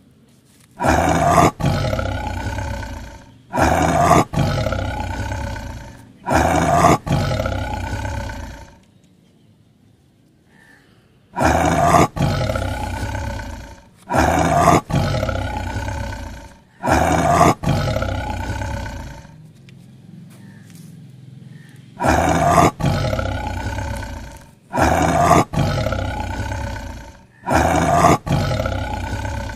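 Recorded big-cat roar sound effect, played nine times in three groups of three. Each roar starts abruptly and fades over about two seconds, with short lulls between the groups.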